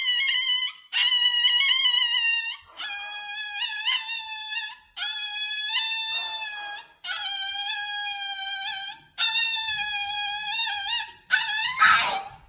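A dog howling: about six long, high, drawn-out howls separated by short breaks, with a brief scuffling noise near the end.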